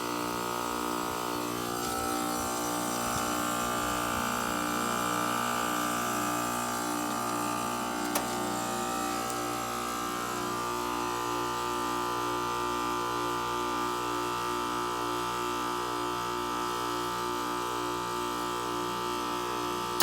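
2016 Ruud heat pump's outdoor unit running in its defrost cycle: a steady compressor hum with a pulsing tone and a higher whine that shifts a couple of times. At the very end it cuts off sharply as the defrost ends.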